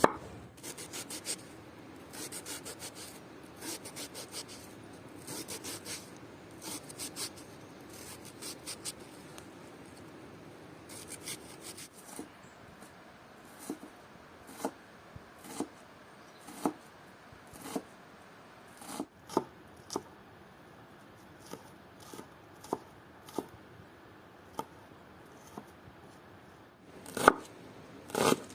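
Knife chopping vegetables on a cutting board: quick runs of cuts for the first twelve seconds or so, then slower single cuts about one a second, with a few louder knocks near the end.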